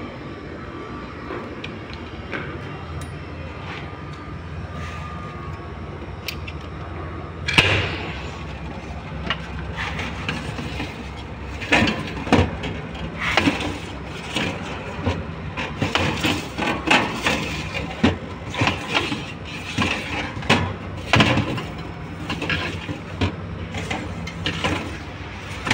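Steady low hum of an ultra-low (–80 °C) laboratory deep freezer's refrigeration unit running. About seven seconds in, a sharp clack as the freezer door is opened, followed by irregular knocks and clatters of handling at the open cabinet.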